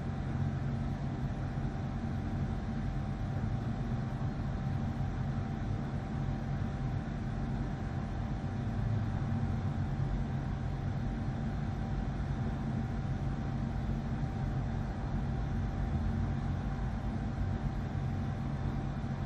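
Steady low mechanical hum with a faint steady tone above it, unchanging throughout.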